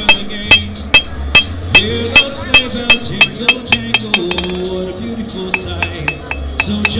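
Ball-peen hammer striking hot iron on an anvil, about two or three ringing blows a second, with lighter, quicker taps in the second half. Music plays underneath.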